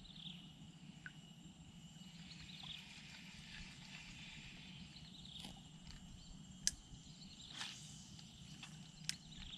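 Faint outdoor ambience: thin, high animal calls over a low steady hum, broken by a few sharp clicks.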